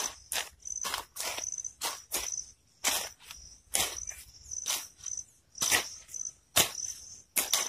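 Two short-handled hand hoes chopping into field soil in quick, irregular strokes, about two to three a second.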